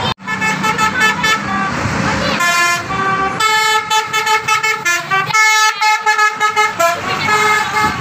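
A coach's 'basuri' telolet horn, a multi-tone musical air horn, playing a quick tune of held notes that step up and down in pitch, over road and crowd noise.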